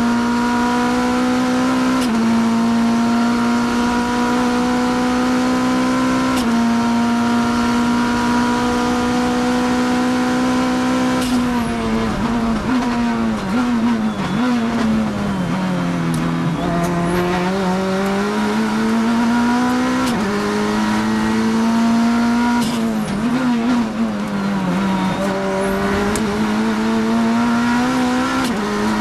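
In-car sound of a Kia GTS race car's engine at full throttle, stepping up through gears about 2 and 6 seconds in. Then the pitch falls with blips as the driver brakes and downshifts for a corner, rises again through another upshift, and dips once more under braking near the end.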